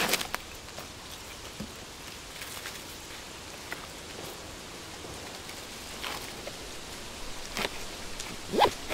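A backpack handled and hung on a wooden peg against a tree trunk: scattered rustles and light knocks, the loudest just before the end, over a steady soft hiss.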